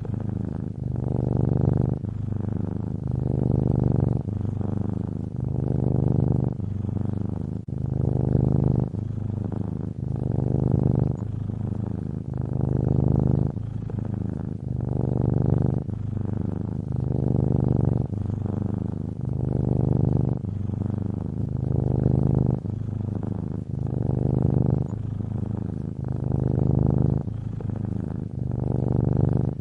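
Domestic cat purring close up, a continuous low rumble that swells and eases with each breath about every two seconds.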